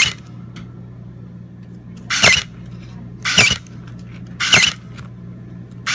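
Battery-powered Eco Electronix EX-25 electric stapler firing again and again: a short motorised clack about every second and a quarter, three full strokes plus one at each edge. A steady low hum runs underneath.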